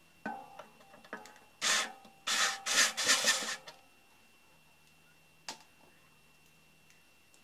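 Cordless drill-driver working into the sheet-steel panel box: the motor starts, then several short loud bursts of the bit grinding into the metal. A single click follows a couple of seconds later.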